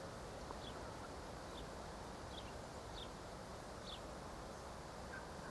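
Quiet countryside ambience: a faint steady background noise with short, high, falling chirps repeating about once a second.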